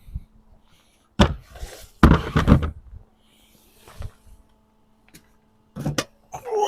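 Irregular knocks and clunks of tools and engine parts being handled during an engine strip-down, with a cluster of heavier clunks about two seconds in and a quick pair near the end.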